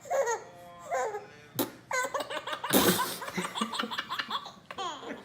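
A baby laughing in quick repeated bursts, with a short loud burst of noise about three seconds in.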